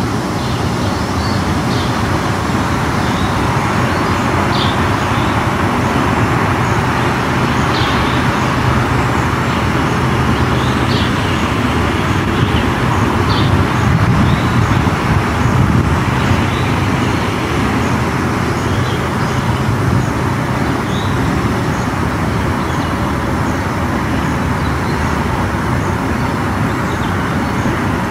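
Steady rumble of distant road traffic, with short, high bird chirps every second or few.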